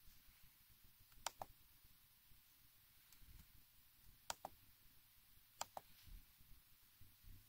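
Touchpad button on a tablet's keyboard dock clicking three times, each a quick double click like a press and release, over near-silent room tone.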